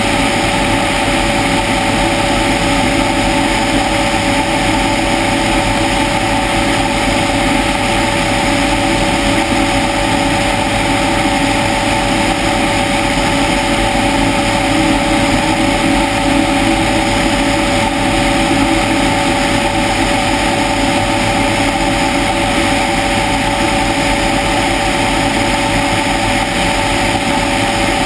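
Helicopter in steady flight: engine and rotor running evenly, a steady hum over a rushing noise.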